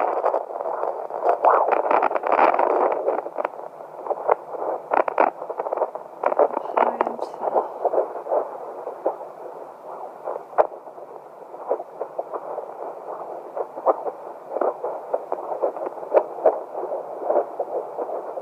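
Handheld fetal Doppler's speaker hissing and crackling as the probe slides over gel, with quick whooshing pulses coming through as it searches for an 11-week fetal heartbeat.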